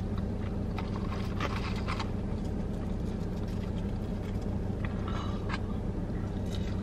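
Steady low hum of a car idling, heard from inside the cabin, with a few faint clicks and rustles from eating about a second and a half, two seconds and five seconds in.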